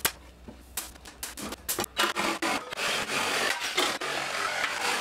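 Cordless brad nailer driving nails into cedar boards, several sharp snaps in quick succession over the first two seconds, followed by a continuous rough scraping of wooden boards rubbing against each other and the frame as they are worked into place.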